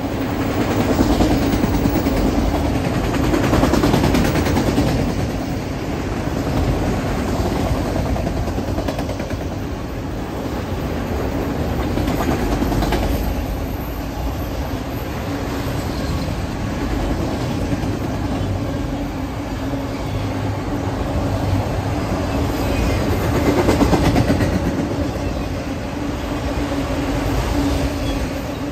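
Freight train of enclosed autorack cars rolling steadily past: the continuous rumble and clatter of steel wheels on the rails, with a steady low hum underneath that swells and fades a little as the cars go by.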